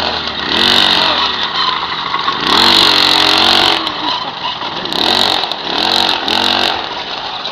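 Small moped engine revving up and down as it is ridden, in several rising-and-falling surges, the longest about two and a half seconds in.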